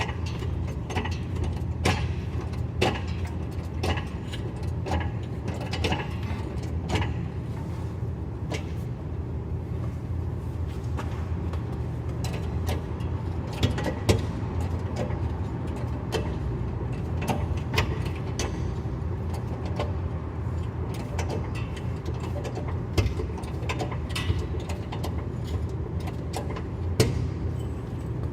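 Road and drivetrain noise of a 2012 BMW 328i heard from beneath the car at the rear differential while driving: a steady low rumble with frequent sharp clicks and knocks.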